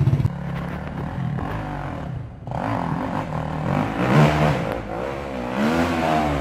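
Dirt bike engine revving, its pitch rising and falling in repeated sweeps as the bike climbs a steep sandy hill. It drops away briefly a little after two seconds and is loudest about four seconds in.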